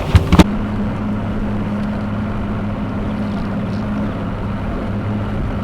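Boat motor running steadily with an even hum, after a few knocks of handling in the first half second.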